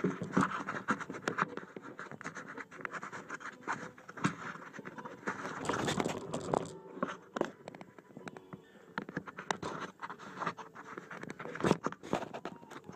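Irregular scratching, scraping and clicking of loose stones and grit underfoot or under wheel while moving over a rocky dirt track, with rubbing against the microphone.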